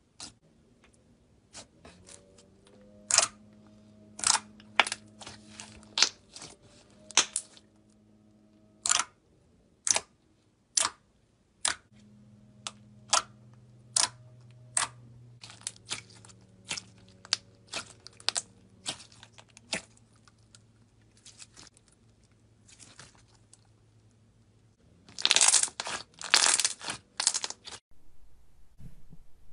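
Slime being pressed, squeezed and poked by hand, giving sharp wet pops and clicks at irregular intervals, with a dense crackly run of pops near the end.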